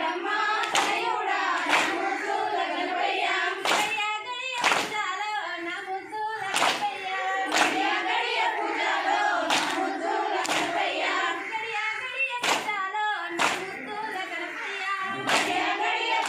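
Group of women singing a Bathukamma folk song in unison, with hand claps in pairs about a second apart, coming round roughly every three seconds in time with the circle dance.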